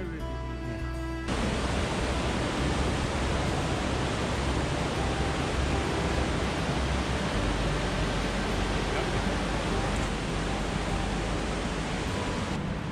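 Fast mountain river running over white-water rapids: a steady, even rush of water that starts abruptly about a second in, with background music underneath.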